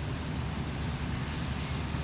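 Combine harvester working a grain field, its engine and threshing machinery making a steady drone with a tractor running alongside.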